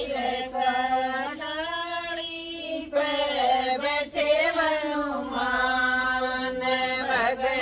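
A group of women singing a Hindi devotional bhajan without instruments, in long drawn-out sung phrases.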